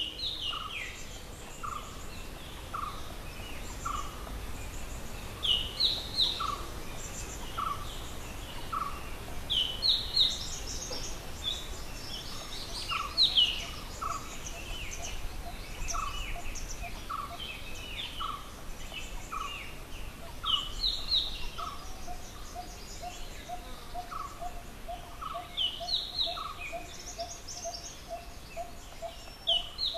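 Several birds calling at once. One repeats a single short note about twice a second, bursts of higher chirps come every few seconds, and about halfway a quick, even run of lower notes joins in.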